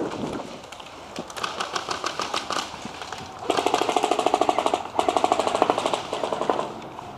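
Airsoft electric rifles firing on full auto in rapid, evenly spaced shots. A fainter run of fire comes first, then two long loud bursts of about a second and a half each near the middle, trailing off into a few short ones.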